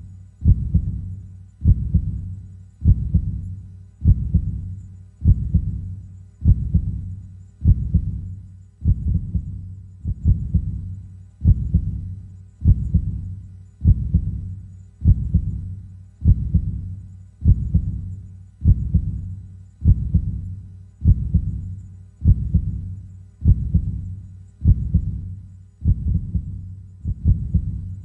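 A heartbeat: slow, steady, deep double thumps (lub-dub), just under one beat a second.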